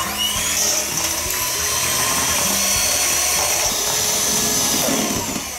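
Electric hand mixer running steadily, its beaters whipping eggs, water and oil in a stainless steel bowl into a foam.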